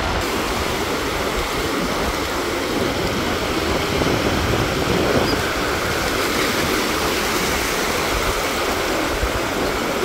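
Shallow surf washing and breaking on the beach, a steady rushing noise, with wind buffeting the microphone.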